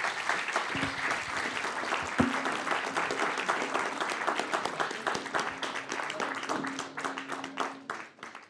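Audience applauding with dense, steady clapping that thins out and fades away near the end.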